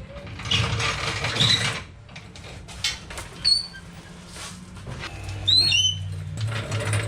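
Workshop handling noises: a scraping rustle, a few knocks, and several short high squeaks, with a low hum coming in about five seconds in.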